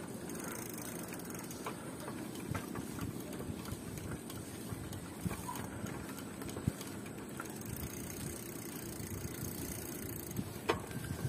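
Steady low rumble of a bike being ridden, with scattered light clicks and knocks.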